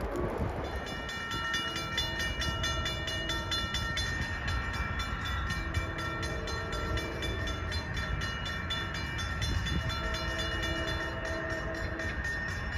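Approaching NJ Transit train's horn sounding a series of blasts, about long, long, short, long, like a grade-crossing signal, over a fast, even ticking.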